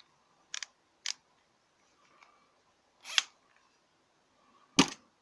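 Extendable ratcheting screwdriver being handled: a few separate sharp clicks, then a louder knock near the end as it is laid back among the tools in the drawer.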